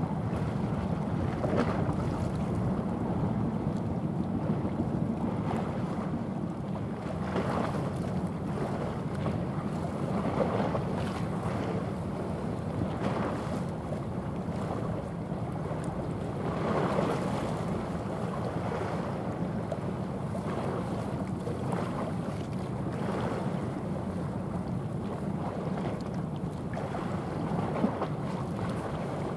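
Wind buffeting the microphone in irregular gusts over a steady low rumble, with choppy sea water.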